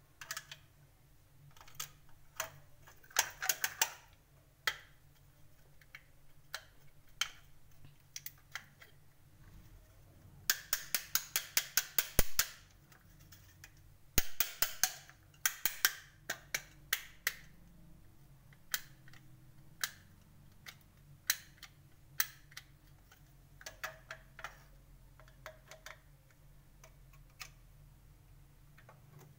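Sharp plastic clicks and taps from handling a wired kitchen switch board plate, scattered throughout, with a quick run of rapid clicks about ten seconds in and another about fourteen seconds in.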